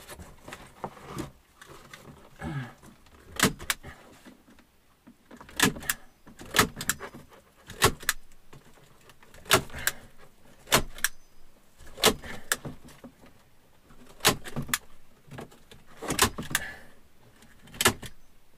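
Hand staple gun clacking as it drives staples into birch bark, about fifteen sharp shots at roughly one a second, some in quick pairs. Softer handling noise in the first few seconds.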